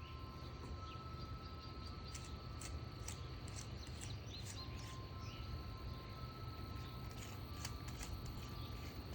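Rural outdoor ambience: small birds chirping and insects trilling steadily over a low rumble, with scattered faint clicks.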